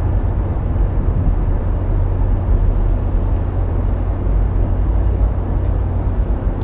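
Steady low rumble of city background noise.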